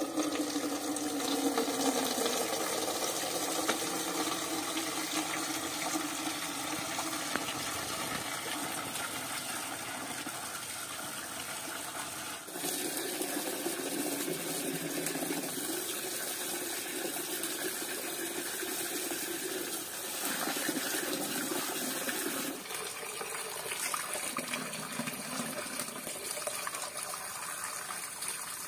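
Water from an outdoor tap pouring and splashing into a steel cooking pot as romaine lettuce and tomatoes are washed under the stream. It starts suddenly as the tap is opened, then runs steadily.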